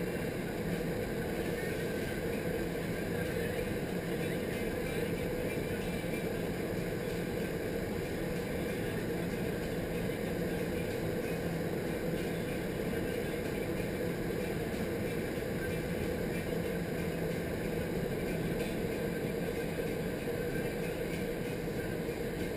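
Steady rush of air in an indoor skydiving wind tunnel's flight chamber, with a constant low hum underneath.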